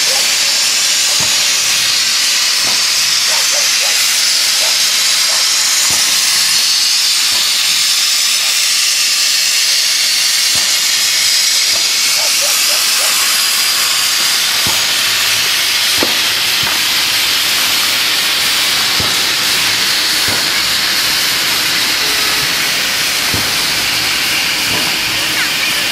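A China Railways JS-class 2-8-2 steam locomotive standing idle, its steam hissing steadily and loudly. A few faint clicks and knocks sound now and then over the hiss.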